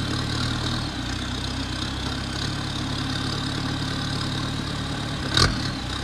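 Sherp ATV's diesel engine idling steadily, with a single sharp clunk about five and a half seconds in.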